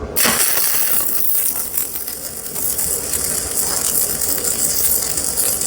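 Stick-welding arc from a 3/32-inch E6013 rod, struck suddenly just after the start and then burning with a steady dense crackle and hiss.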